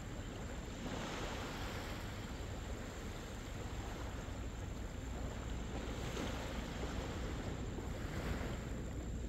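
Wind rumbling on the microphone over the steady wash of small waves on the beach, the surf swelling a few times.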